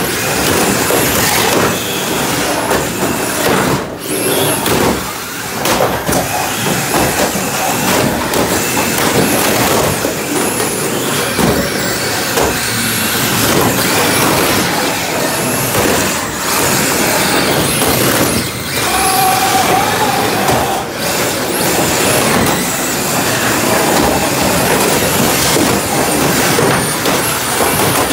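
Radio-controlled demolition-derby cars driving and ramming each other on a plywood floor: motors and tyres running with repeated knocks and clatter of plastic bodies colliding.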